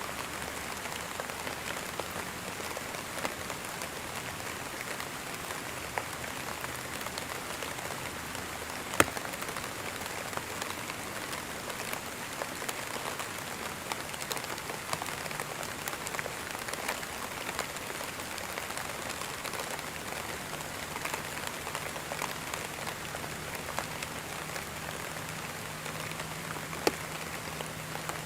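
Steady rain falling on a surface, an even hiss, with a few sharper drop ticks, the loudest about nine seconds in and another near the end.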